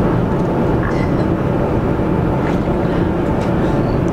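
A steady low engine rumble runs on without a break, with a few faint steady tones in it.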